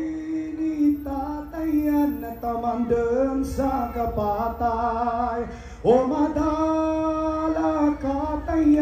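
Voices singing a melody, the music of a street-dance performance; a new phrase comes in sharply about six seconds in and holds a long note.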